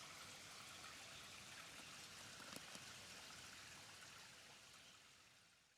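Waterfall's steady, faint rush of falling water, fading out near the end.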